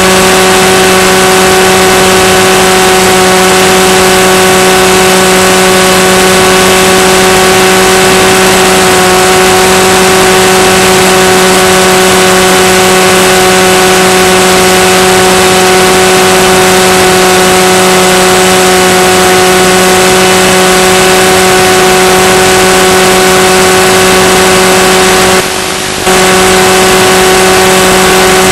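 Steady buzzing drone over heavy hiss, unchanging in pitch, on the onboard audio of an FPV plane's analog video downlink. A brief dropout comes about 25 seconds in.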